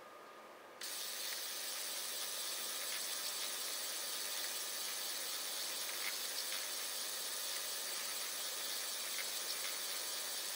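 Steady hiss from a kinetic feather-box sculpture's mechanism running, with a few faint clicks. It comes in suddenly, much louder, about a second in.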